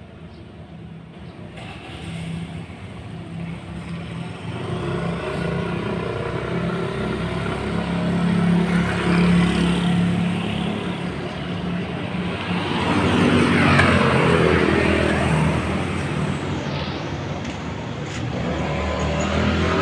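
Motor vehicle engine running close by, with a steady low pitch; it grows louder over the first several seconds and stays loud.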